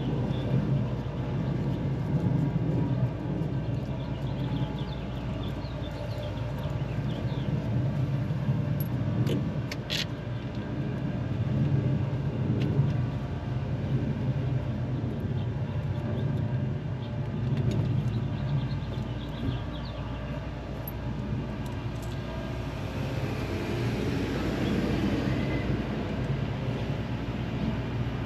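Car engine running steadily, with a low rumble that swells and eases a little, and a single sharp click about ten seconds in.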